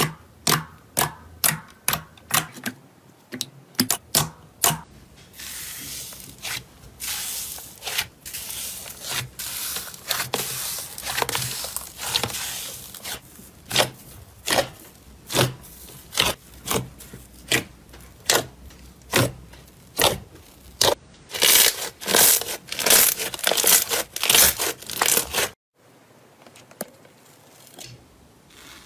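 Slime being pressed and stretched by hand, giving a run of sharp sticky clicks and pops, about three a second, then crackling, crinkly tearing sounds with loud crackly bursts. Near the end it cuts suddenly to a much quieter stretch.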